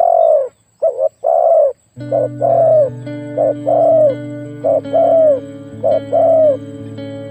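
Spotted dove cooing in repeated two-part phrases, a short note followed by a longer arching one, about five times. Background music comes in about two seconds in.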